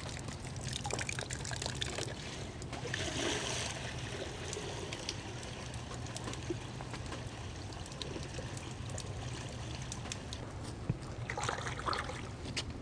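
Water sloshing and trickling in a glass dish as raw possum pieces are rinsed by hand, with brighter stretches of splashing about three seconds in and again near the end.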